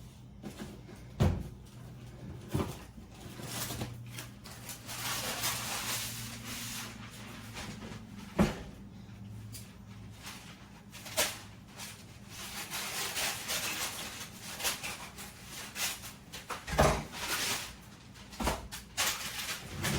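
Kitchen handling noises: a few scattered knocks and clunks of things being moved and set down, like a cupboard or box closing. A low steady hum runs for several seconds in the middle.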